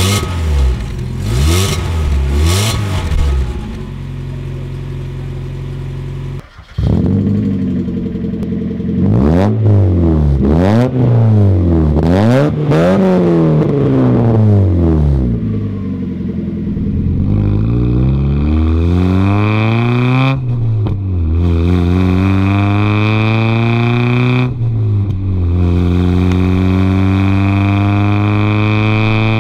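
Mazda Miata NA's inline-four engine. It first blips a few times and idles through the stock exhaust. Then, with a Manzo cat-back exhaust, it is revved in several sharp blips while parked, and finally pulls hard under acceleration, rising in pitch with two upshifts, heard close to the tailpipe.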